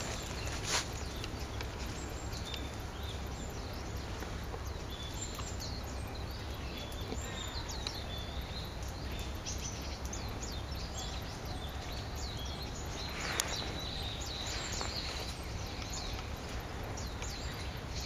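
A mixed flock of small songbirds calling in the shrubbery: many short, thin, high call notes scattered throughout over a steady background noise, with two brief louder noises, one about a second in and one near three-quarters through.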